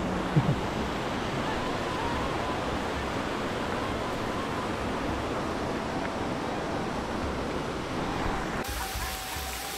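Shallow river rushing over rocks, a steady even rush of water. It drops away suddenly near the end.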